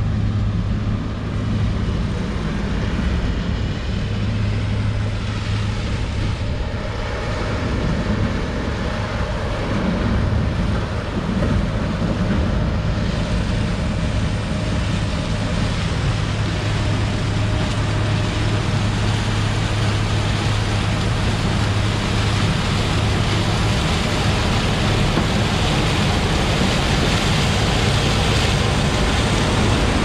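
John Deere 8820 combine with a 643 corn head harvesting standing corn: its diesel engine and threshing machinery run with a steady low hum and a broad mechanical rush that grows louder as the combine comes close near the end.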